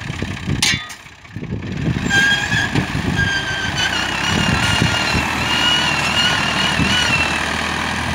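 Al-Ghazi farm tractor engine working hard under load, trying to drag a loaded sand trolley through soft sand; it rises to a steady, loud pull about two seconds in, with a high wavering whine over it.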